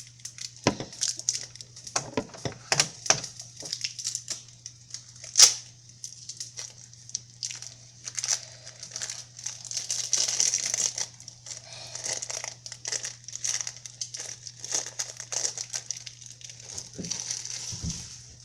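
A spatula scraping and knocking at egg stuck to a frying pan, in a long run of irregular scrapes with one sharp knock about five seconds in, over a steady high hiss.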